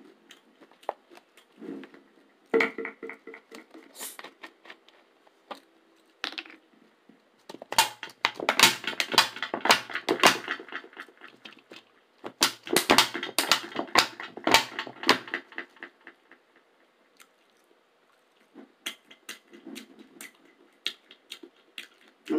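A plastic soda bottle crinkling and crackling close to a microphone as it is squeezed and handled, in two long bursts about eight and thirteen seconds in, with lighter clicks and taps around them.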